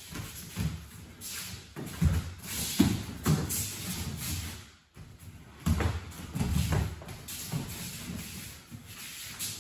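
Bare feet stepping, stamping and sliding on tatami mats, with the rustle of heavy cotton judogi, as two judoka grip and move together. The steps come as irregular thumps with a brief pause about halfway through.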